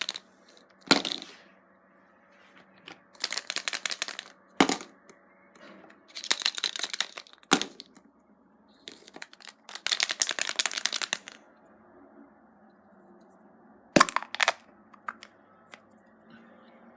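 Foil wrapper crinkling and tearing in four bursts, with a few single sharp cracks in between: chocolate surprise eggs being unwrapped and broken open.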